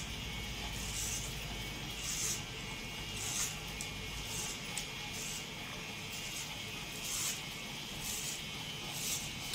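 Electric hair trimmer cutting a boy's short hair, with a short hiss at each pass of the blades, about one to two a second. A low hum fades out about four seconds in.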